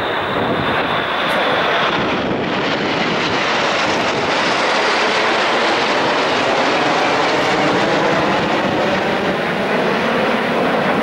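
Red Arrows formation of BAE Hawk jet trainers flying past: a loud, steady jet roar that builds over the first couple of seconds and then holds.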